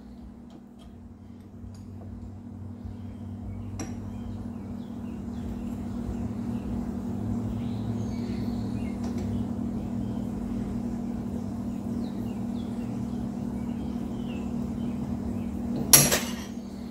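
Bench vise being worked while a stainless steel rod is clamped in its jaws: a few light clicks of the rod and tool handling, then a single sharp metallic clank about a second before the end as the vise's sliding handle drops against its stop. A steady low hum, rising in level over the first few seconds, runs underneath.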